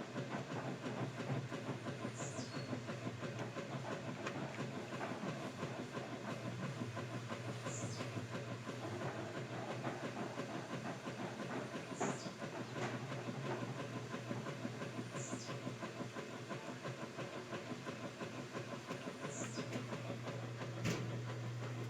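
Whirlpool washing machine running: a steady low motor hum under a rapid rhythmic clatter, with a short high squeak every few seconds and a single knock near the end.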